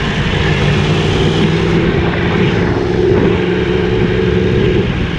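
Yamaha R1 inline-four sport bike engine running at a steady cruising speed while riding, a steady drone with a slight shift in pitch midway, over a hiss of rushing wind.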